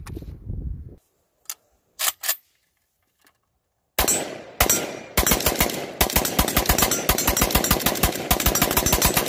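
AK-pattern rifle firing a magazine. A few short clicks come first, then two shots about four seconds in, then a rapid string of shots, about five or six a second.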